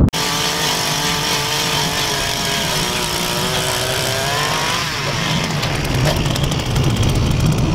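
Power ice auger running steadily as its spiral bit drills a hole through lake ice. Its pitch sags a little about four to five seconds in as the bit cuts down toward the water.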